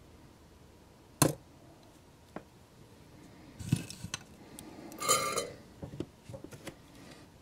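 Handling noise from small metal hand tools on a workbench. There is one sharp click about a second in, then scattered clicks and clinks and a short rustling burst about five seconds in, as the tweezers and soldering tools are put down and moved about.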